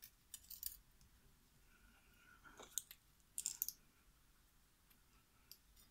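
Faint, scattered clicks and taps of metal tweezers and small brass lock pins against a plastic pin tray and the lock plug, in a few short clusters.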